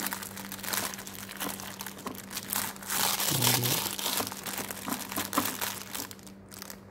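Clear plastic packaging bags crinkling as small bagged tools are handled and packed into a hard plastic case, a dense run of quick crackles.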